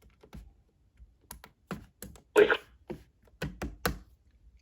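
About a dozen sharp, irregular clicks and taps, unevenly spaced over a few seconds.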